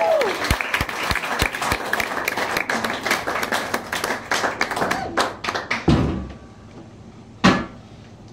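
Audience clapping and cheering, dying away about six seconds in, followed by one short loud burst near the end.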